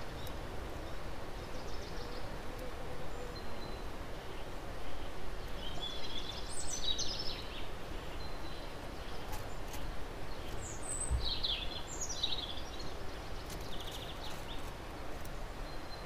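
Songbirds singing in the background over a steady outdoor hiss: several short phrases of quick high notes, the clearest about six seconds in and again around eleven seconds.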